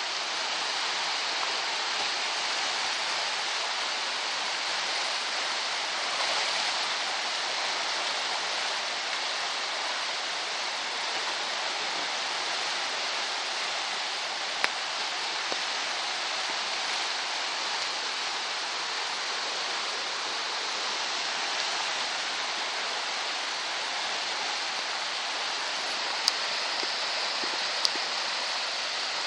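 Steady rushing of flowing water, with a few faint sharp clicks about halfway through and near the end.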